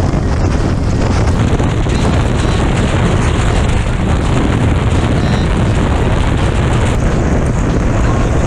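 Steady rush of wind on the microphone over a sport motorcycle riding at motorway speed on a wet road, with the tyres hissing through the water.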